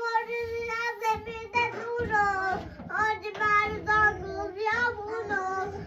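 A young child singing a long, drawn-out tune in a high voice, the notes bending slowly with hardly a break, over a low rumble.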